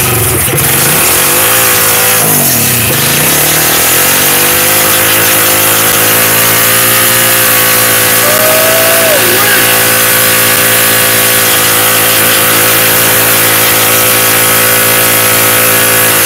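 A Coleman CT100U mini bike's Predator 212 single-cylinder engine revving in a couple of surges, then held at steady high revs for about twelve seconds while the rear tire spins on concrete in a burnout. The revs drop off right at the end.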